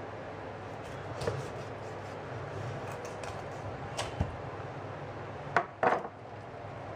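Knife cutting through the head of an American shad on a plastic cutting board, with a few short sharp knocks of the blade and fish against the board. The loudest are two knocks close together near the end, over a steady low hum.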